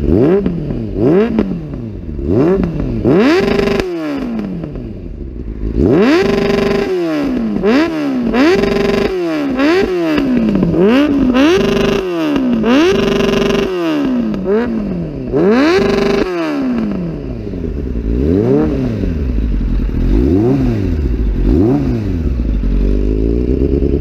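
2003 Suzuki GSF 600 Bandit's inline-four engine revved over and over at a standstill through a Delkevic 200 mm shorty exhaust. It starts with quick throttle blips, then a run of harder revs, several held briefly at the top before dropping back. Toward the end the blips get smaller and the engine settles to idle.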